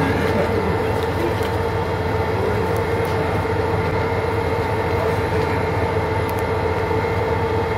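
Sightseeing boat's engine running steadily, an even drone with a held hum, heard from inside the passenger cabin.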